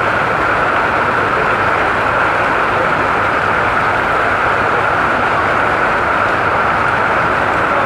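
Heavy rain falling, a loud steady hiss with no breaks.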